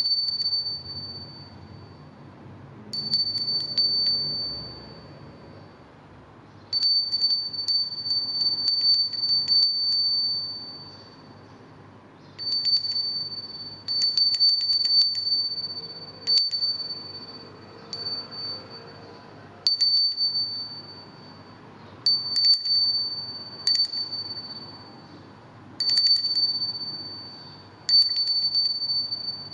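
Small sand-cast silver bell rung again and again, each time with several quick clapper strikes, its single high tone ringing on for a second or two before it fades.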